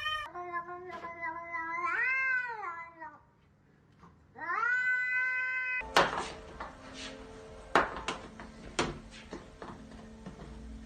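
Domestic cat meowing twice in long, drawn-out calls: the first lasts about three seconds and swells in the middle, and the second is shorter. After a cut comes a stretch of room noise with a few sharp knocks.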